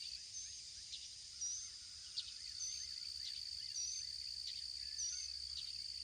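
Outdoor ambience: a steady, high-pitched insect trill, with a bird repeating a short call about once a second.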